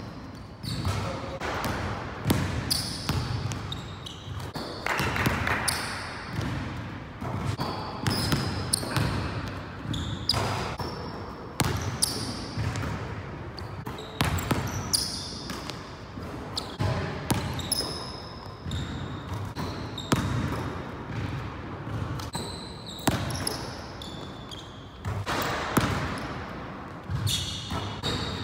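Basketball dribbling and bouncing on a hardwood gym floor in repeated runs of sharp bounces, with short high sneaker squeaks on the court between them.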